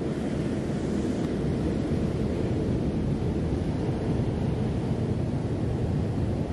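Wind rumbling on the microphone at the shore, a steady low roar with no separate knocks or tones.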